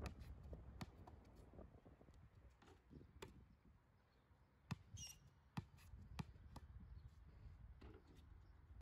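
Faint, irregular knocks of a basketball bouncing on a concrete court, the loudest a few sharp thuds about halfway through.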